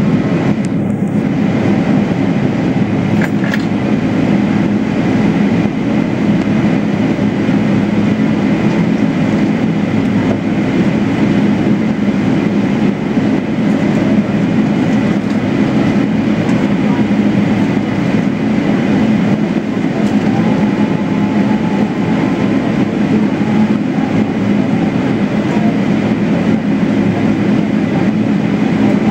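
Steady low rumble inside the cabin of a Boeing 777-300ER taxiing after landing, its GE90 engines at idle.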